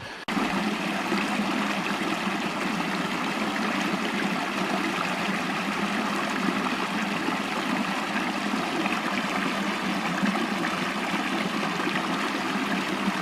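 A small stream running, a steady rush of water.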